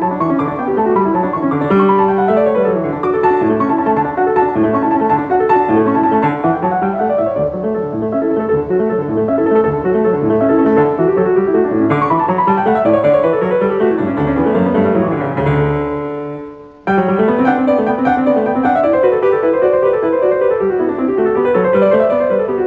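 Piano music with fast runs of notes rising and falling. It fades briefly about sixteen seconds in, then starts again abruptly.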